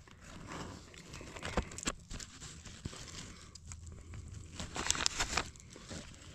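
Fingers picking apart a crisp, fire-charred fish head on butcher paper: the skin and small bones crackle, and the paper rustles. There is a denser burst of crackling about five seconds in.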